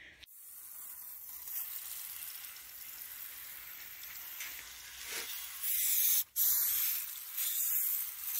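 Aerosol oven cleaner spraying in a steady hiss onto stainless-steel hood baffle filters, louder from about five and a half seconds in, with a brief break just after six seconds.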